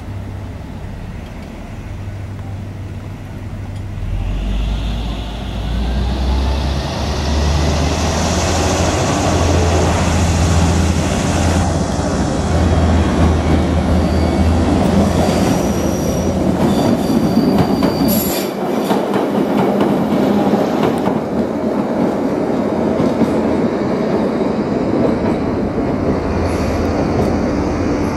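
Class 483 electric train, ex-London Underground 1938 tube stock, running on the pier track: a rumble of wheels on rail that grows louder over the first few seconds, with high wheel squeal and some clickety-clack.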